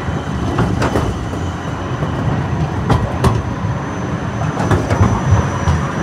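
Siemens Combino tram passing close by: a steady rumble of its wheels on the rails, broken by a few sharp clicks of the wheels on the track, with a faint steady high whine above.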